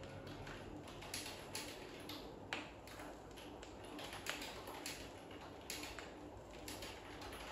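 Stylus riding the silent groove between tracks on a vinyl LP: faint surface hiss with scattered, irregular clicks and pops, about one or two a second.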